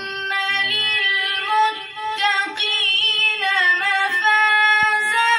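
A boy reciting the Quran in a slow, melodic chant, holding long drawn-out notes and turning them with ornamented pitch runs. His voice is high and clear and does not break off.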